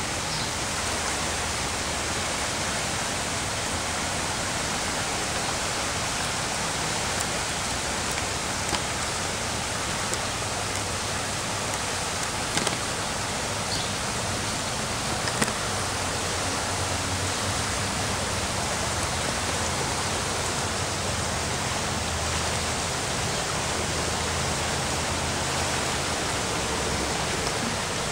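Floodwater of a swollen creek rushing past in a steady, even noise that does not change; a normally tiny creek running in flood. A few faint clicks stand out briefly in the middle.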